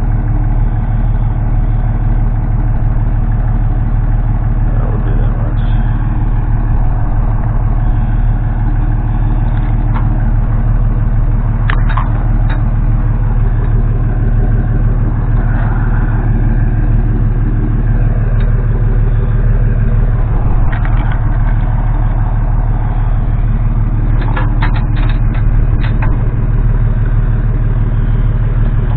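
A vehicle engine running steadily, with a few short clicks about twelve seconds in and again around twenty-five seconds in.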